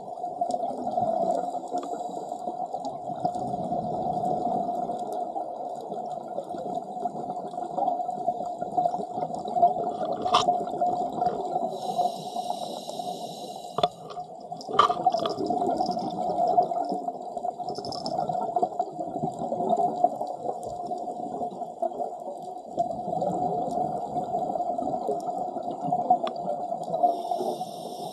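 Underwater sound of scuba divers' regulator exhaust bubbles, coming in swells of bubbling over a steady hum, with a few sharp clicks about ten and fifteen seconds in.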